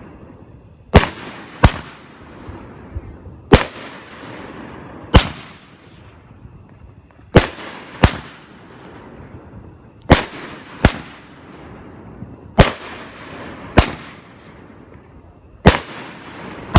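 Fireworks going off: about a dozen sharp, loud bangs every second or two, often in pairs a little under a second apart, each followed by a fading echo.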